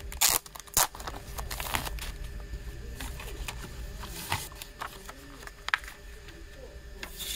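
Hands handling a CD digipak and its clear plastic wrapping: the plastic crinkling and rustling as the case is slid out, with two sharp clicks near the start and a few lighter taps of the cardboard case and paper obi strip later on.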